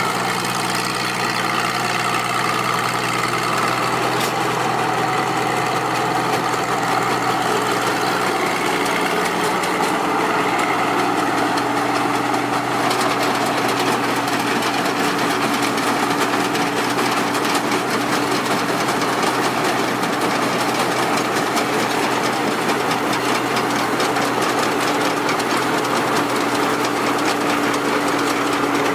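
Pan Charoen tracked rice combine harvester running steadily under load, its engine and machinery giving a continuous drone. A further steady hum joins about ten seconds in.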